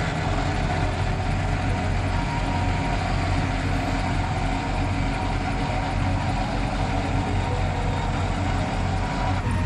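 Vehicle engines idling steadily, a low even drone with no revving.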